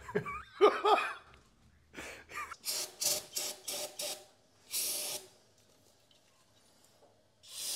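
Men laughing in short breathy bursts after a joke, then a short hiss about five seconds in and a longer steady hiss of spray starting near the end.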